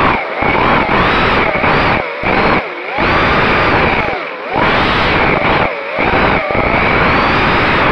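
FPV quadcopter's brushless motors and propellers whining, the pitch swooping up and down with the throttle and falling away in several brief throttle cuts, picked up by the onboard camera's microphone.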